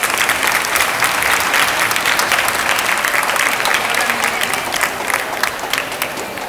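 Audience applauding, many hands clapping at once, swelling in the first second and tapering off near the end.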